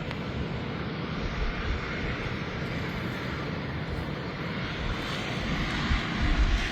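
Strong blizzard wind blowing steadily, buffeting the phone's microphone, swelling in a gust near the end.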